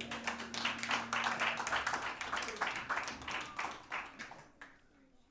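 Congregation applauding at the end of a worship song. The clapping thins out and fades away after about four seconds.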